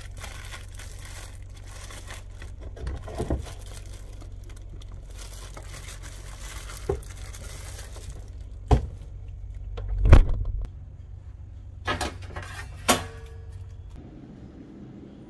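Food packages being handled in an open refrigerator: plastic packaging crinkling and rustling, then a milk carton and containers knocking against the shelves about six times, the loudest about ten seconds in, over a steady low hum.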